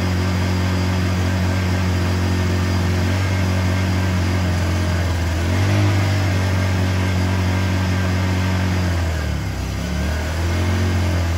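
Honda EU1000i inverter generator's small single-cylinder four-stroke engine running on propane through a conversion kit, with Eco Throttle off, running steadily and judged to be running well. Its engine speed rises briefly about halfway through, dips near the end and then recovers.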